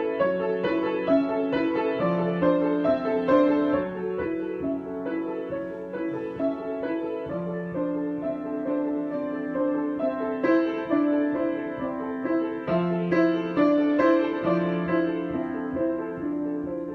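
Solo piano improvisation: a steady stream of struck notes moving over held lower notes, gentle and unhurried.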